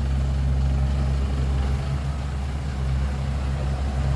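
Heavy earthmoving machine's diesel engine running steadily at low revs, a deep even drone that wavers slightly midway.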